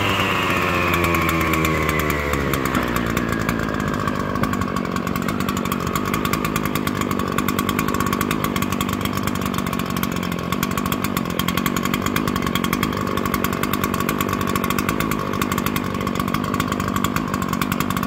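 A small petrol engine drops in pitch from high revs over the first few seconds, then runs on at a steady speed.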